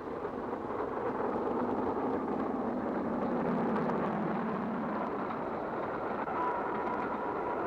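LNER A3 steam locomotive Flying Scotsman and its train running at speed, a steady rumbling noise that builds over the first second and then holds.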